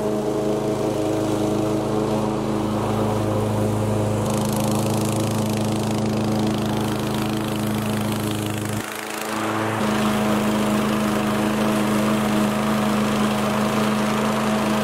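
Toro Recycler 22-inch walk-behind mower's petrol engine running steadily at full throttle while cutting tall grass. The sound dips briefly about nine seconds in, then carries on.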